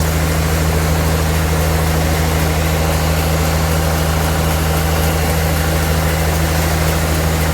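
Sawmill machinery running steadily at an even pace: a constant low engine drone with a noisy hiss above it, with no change in speed or load.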